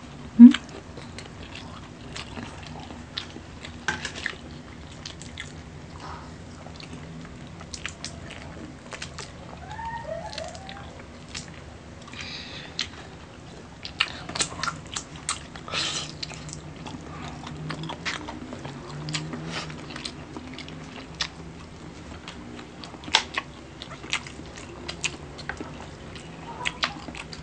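Close-up chewing and biting of a seafood meal, with many short, irregular crunching clicks.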